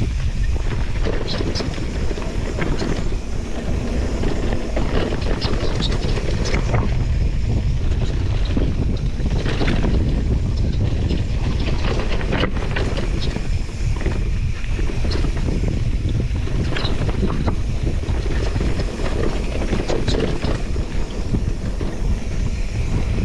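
Wind buffeting the microphone while a mountain bike descends a dirt trail. The bike's tyres and frame rattle and clatter over rough ground the whole way.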